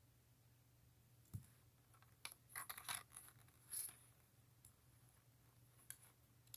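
Small plastic Lego pieces clicking and rattling as they are handled, in short bursts of sharp clicks about two to four seconds in, with a soft knock before and a single click near the end; otherwise near silence.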